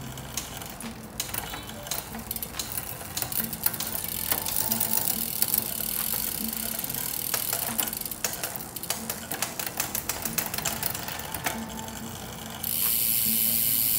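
Road bike drivetrain turned by hand in a repair stand: the chain runs over the cassette and through the rear derailleur while the rear hub ratchets in rapid, uneven clicks. Faint background music plays under it, and near the end a louder steady hiss takes over.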